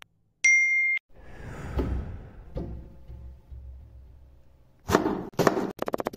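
A short steady electronic beep, about half a second long, near the start. Then a large kitchen knife chopping cabbage on a wooden cutting board: two heavy strokes about five seconds in, then rapid, evenly spaced chopping.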